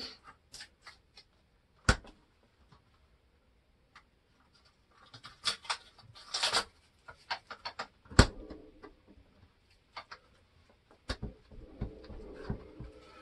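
Scattered clicks and taps with some scraping, and two sharp knocks about two seconds in and about eight seconds in, as the door and fittings of a refrigerator are handled.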